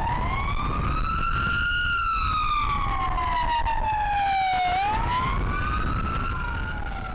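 Siren wailing, its pitch rising and falling slowly with about four to five seconds per cycle. A second siren overlaps it near the end, over a low steady rumble.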